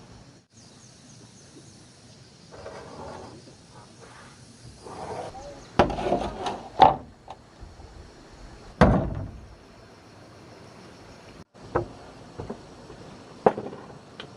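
Irregular knocks and thumps, a cluster about six to seven seconds in and a heavier one near nine seconds, then lighter taps, over a steady high drone of insects.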